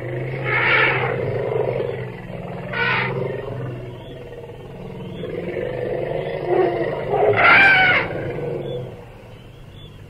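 Wild animal roaring and growling in several long, loud calls, the loudest about three-quarters of the way through, over a low steady hum.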